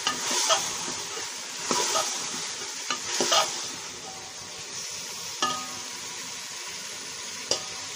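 A metal spoon stirring potatoes and green beans in a steel pot, knocking and scraping against the pot several times, over a steady sizzle of the vegetables frying in oil and spices.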